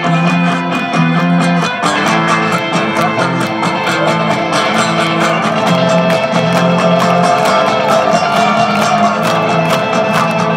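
Live rock band playing through a large festival PA, heard from the crowd: electric guitar and bass guitar over drums keeping a steady beat.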